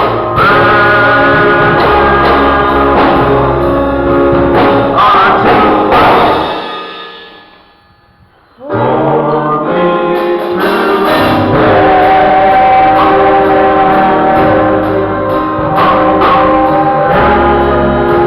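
Gospel music with singing and instruments. It fades out about six seconds in, and the music starts again abruptly about two seconds later.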